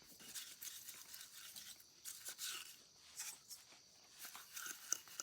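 Quick, irregular rubbing strokes in short bursts, with a sharp click near the end.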